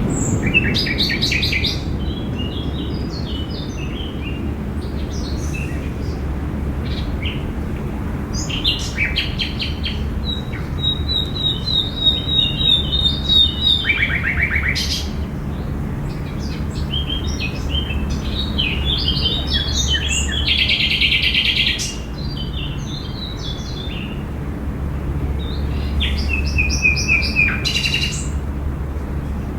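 Several songbirds chirping and trilling in bursts, with one longer trilled song in the middle, over a steady low background rumble.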